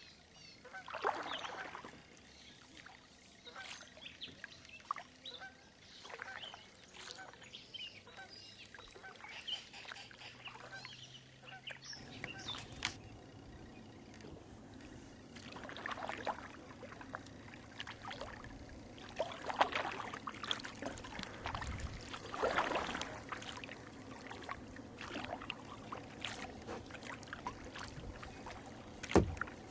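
Waterfowl calling repeatedly, then water noise from a kayak paddling, with a splash every few seconds.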